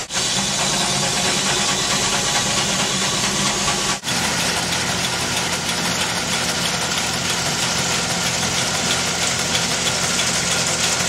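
Engine-driven machinery running steadily. The sound drops out for an instant about four seconds in, then the running carries on with a slightly different tone.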